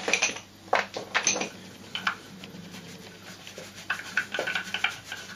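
Polished cherrywood toy parts clicking and knocking together as loose pieces are picked from a wooden tray and buffers are fitted into a wooden chassis. A handful of irregular sharp knocks, the louder ones in the first second and a half.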